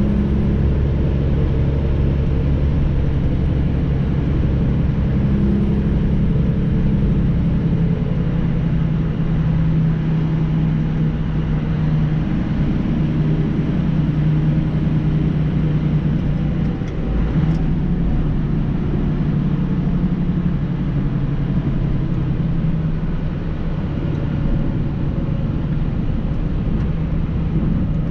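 Semi-truck engine and road noise heard from the cab while driving, a steady low drone with a constant engine hum.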